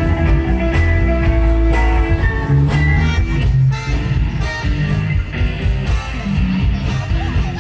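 Loud rock music with guitar and a heavy bass line.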